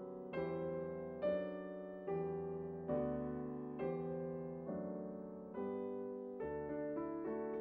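Slow, gentle piano music, a new note or chord struck about once a second and each left to ring out.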